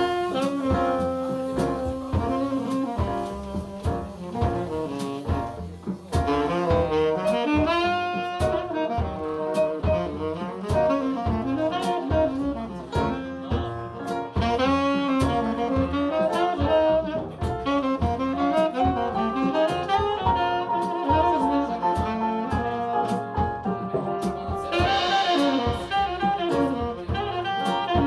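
Live jazz-blues band: a tenor saxophone plays a melodic solo line over piano, double bass and a steady drum beat.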